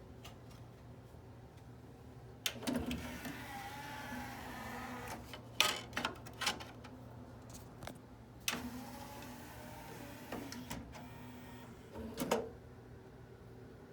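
Yamaha CDC-625 CD changer's mechanism running: two spells of small-motor whirring, each followed by sharp clicks and clunks, over a steady low hum.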